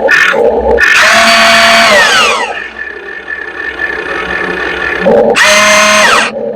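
Electric motors of an RC model excavator whining in two loud bursts over a steady running hum: one starts about a second in and winds down in pitch, and another starts about five seconds in and winds down near the end.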